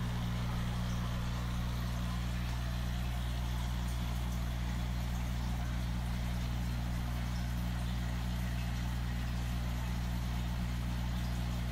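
Steady low electric hum of an aquarium pump, with an even hiss over it and no change throughout.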